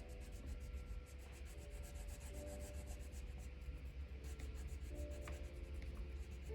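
Drawing tool scratching on paper in quick repeated strokes, as when colouring in or shading, with faint background music of held notes.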